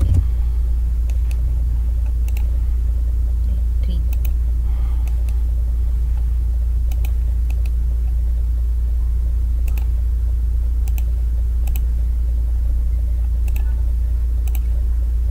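Computer mouse clicks, many in quick press-and-release pairs, coming irregularly every second or two over a steady low electrical hum. The hum is the loudest sound throughout.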